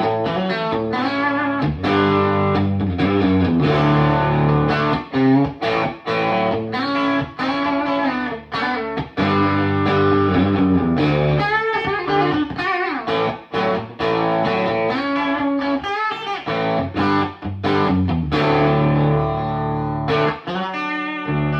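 1967 Fender Telecaster played through a 1964 Vox AC30 set about a third up, pushed by a Klon-clone boost pedal, giving a crunchy, lightly overdriven electric guitar tone. Chords and licks with notes bent in pitch, ending on a held, ringing chord.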